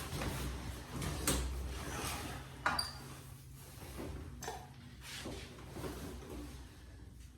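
Knocks, clicks and rustling from a chiropractic treatment table as the patient shifts onto their side and is worked on. The loudest knocks come about one and three seconds in, the second with a brief high squeak.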